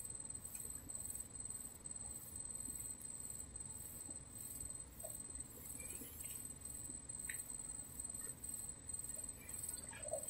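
Faint insects chirping: a steady high-pitched trill with a quick pulsing rhythm above it, with a few faint clicks mixed in.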